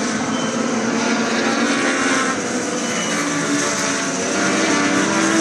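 A pack of Legends race cars racing past through a corner, several of their Yamaha motorcycle-derived four-cylinder engines running hard at once, with engine notes overlapping and rising and falling in pitch as the cars go by.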